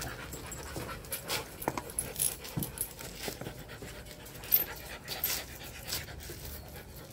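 Rottweiler panting with quick breaths through an open mouth. A single sharp click about four and a half seconds in.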